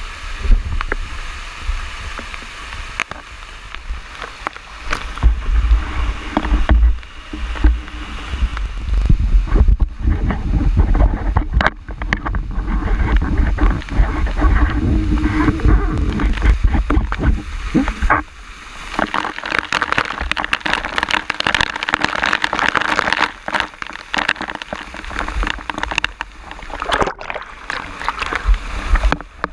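Rushing water of a canyon waterfall and stream close to the camera, with low wind rumble and frequent handling knocks on the microphone. About two-thirds of the way through the water becomes a loud hissing splash as the camera is in the falling spray.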